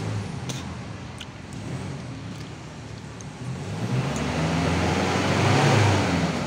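A motor vehicle's engine running with a low hum. From about halfway through, engine and road noise swell to a peak near the end, like a vehicle passing close by.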